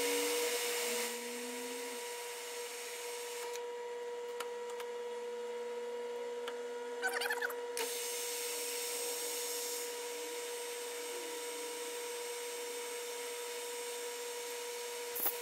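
Metal lathe running with a steady whine while it machines a brass bar: a cutting tool faces off the end of the bar, with a hiss of cutting noise early on, and then a twist drill is fed into the brass from the tailstock.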